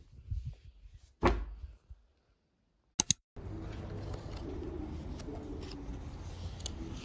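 Light handling noises indoors with a dull thump about a second in. After a short silence come two quick clicks, then a steady outdoor background with a low rumble.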